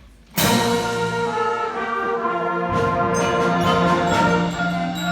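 Concert band with brass entering together suddenly and loudly about half a second in, then playing held chords.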